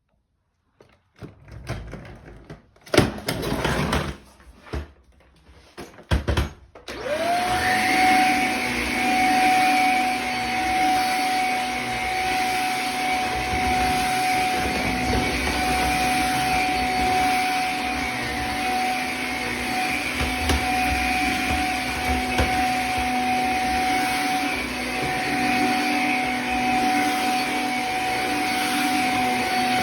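Shark vacuum cleaner switched on about seven seconds in. Its motor whine rises quickly to a steady pitch and then runs steadily. Before it start there are a few irregular knocks and clatters of handling.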